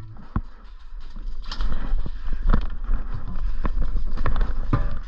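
Irregular sharp knocks about once a second over a steady low rumble: footsteps and gear knocks of an airsoft player on the move, heard through a body-worn camera.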